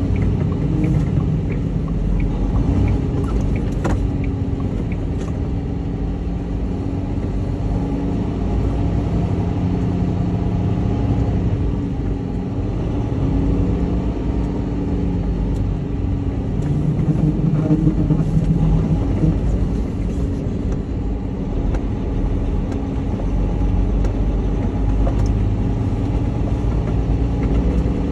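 Semi truck's diesel engine running as the truck drives slowly, heard from inside the cab: a steady low hum whose pitch shifts a little and swells about two thirds of the way through.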